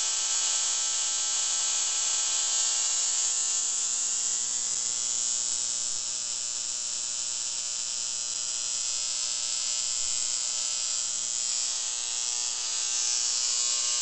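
Spark gap of a homemade Leyden jar oscillator (early spark radio transmitter) firing continuously: a steady electric buzz with a harsh high hiss, the sign that the transmitter is running and oscillating.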